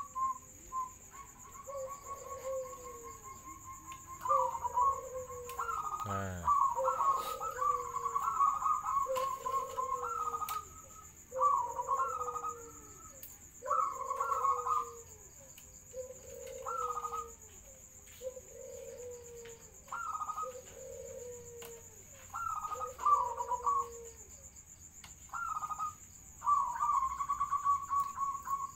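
Zebra dove (perkutut) cooing: a run of repeated song phrases, each a higher trilled coo followed by a lower, rounder note, about one every one and a half to two seconds.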